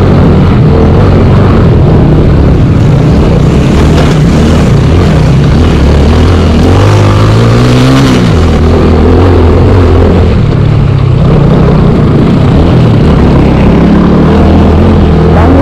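A TVS Apache motorcycle's single-cylinder engine running at low revs, the revs climbing and then easing off about seven or eight seconds in.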